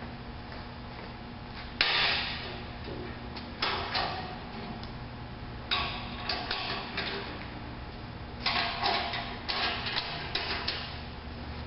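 Catan hitch-mounted tailgate lift being folded up and secured: its diamond-plate metal platform and frame clank and rattle in several bursts of clatter, with a longer run of rattling and clicks near the end.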